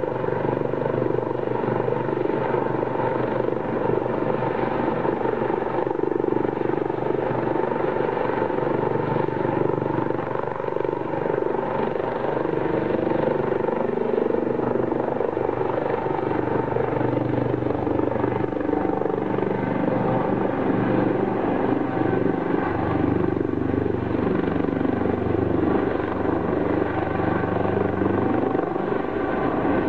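US Coast Guard HH-65 Dolphin helicopter in flight, its turbine and rotor sound running steadily. Several held tones slowly shift in pitch as it passes.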